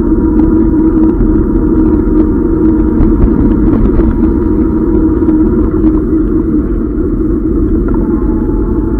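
Steady, muffled rumble of a camera in its case on a Tern HSD e-bike riding over a rough, wet road surface, with small knocks and rattles from bumps.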